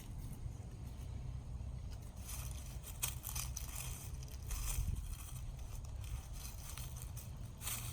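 Irregular dry crinkling and scraping from a puppy at play, starting about two seconds in and coming in short bursts, over a steady low rumble.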